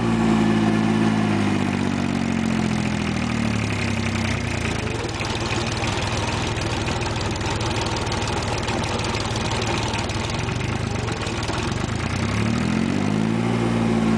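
Compact diesel farm tractor engine running as the tractor is driven. Its note drops a couple of seconds in and rises again near the end.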